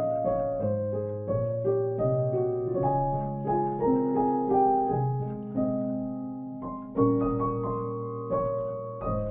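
Background solo piano music: slow single notes and chords that fade after each strike, over lower held notes.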